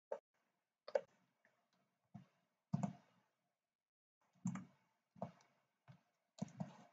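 Faint, scattered clicks of a computer mouse and keyboard, about eight of them at uneven intervals, picked up by the desk microphone.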